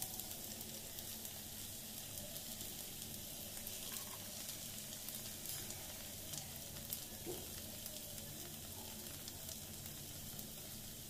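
Soaked rice frying in ghee in a pan over a lowered flame: a soft, steady sizzle with a few faint clicks.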